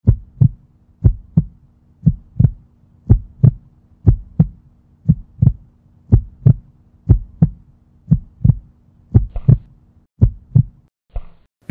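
Heartbeat sound effect: paired lub-dub thumps at about one beat a second over a faint low hum, stopping near the end.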